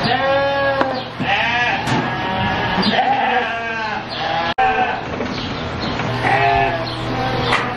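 Market lambs bleating over and over, several wavering calls overlapping one another.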